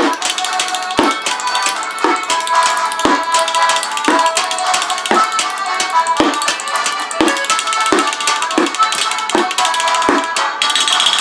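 Junk percussion, drumsticks rapping on a pedal bin and tin cans, played along with folk music that has held pitched notes. A low thump lands about once a second under fast, steady taps.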